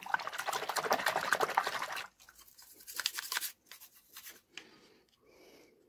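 Toothbrush bristles scrubbing a plastic car air-vent diffuser in soapy water: a rapid scratchy brushing for about two seconds, a shorter burst about three seconds in, then only faint handling clicks.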